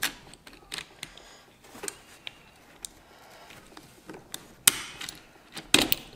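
Irregular sharp clicks and knocks of hand tools and small metal parts being handled while fasteners are taken off an AccuAir VU4 air-suspension valve manifold, the loudest knocks near the end.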